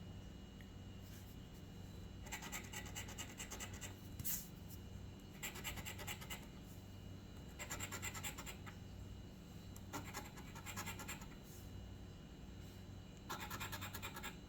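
A scratch-off lottery ticket being scratched: five short bouts of quick back-and-forth scraping at the coating, with a brief sharp click just after the first bout.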